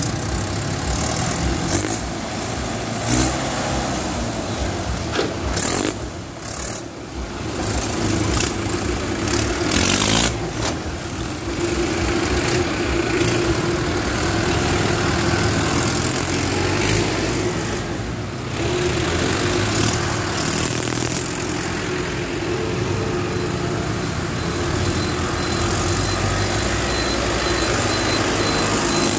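Diesel engines of new Mahindra tractors running at low speed, their pitch rising and falling a little as they pull away.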